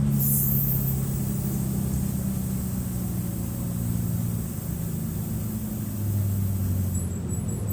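Mercedes-Benz OF-1723 bus's OM 906 LA six-cylinder turbodiesel running, its note slowly falling as the revs drop. A short high hiss sounds just after the start.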